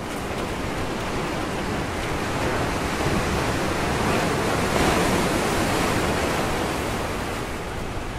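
Ocean surf washing onto a rocky shoreline: a steady rushing wash that swells to a peak about five seconds in and then eases off.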